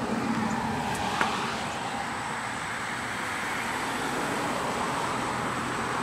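Steady outdoor background noise with one short click about a second in.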